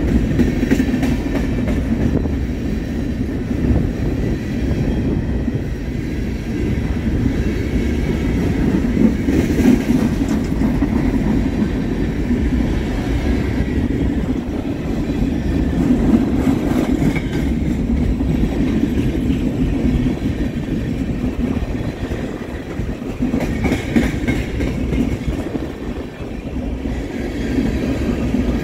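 BNSF freight train cars rolling past at steady speed: a continuous low rumble of steel wheels on rail, with clacking as the wheels cross rail joints and a faint high squeal now and then.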